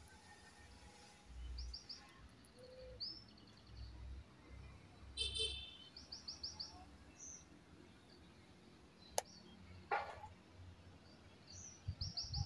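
Small birds chirping in quick series of three or four high notes, repeated several times, over faint low rumbles; a single sharp click about nine seconds in.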